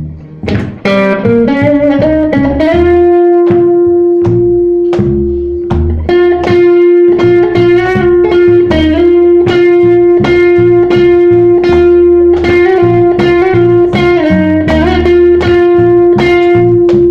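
Live blues band playing: a lead guitar slides up over the first few seconds into one long sustained note, held over a bass line and a steady drum beat.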